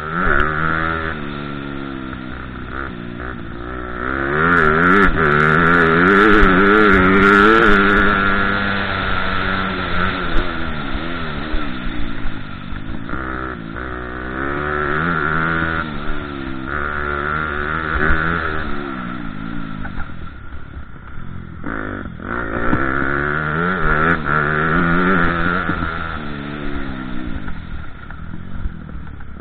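Motocross bike's engine heard onboard from the rider's helmet, revving up hard and falling back over and over as the bike is ridden around the dirt track, with a few brief lulls at lower revs.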